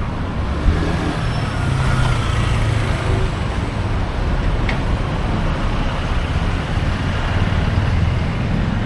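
City street traffic: a steady low rumble of engines and road noise, with a brief sharp tick a little under a second in.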